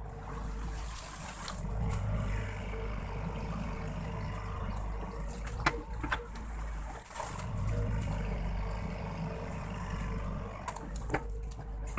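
Sany SY55C mini excavator's diesel engine running under hydraulic load while digging, its note swelling and easing as the arm works. A few sharp knocks stand out near the middle and near the end.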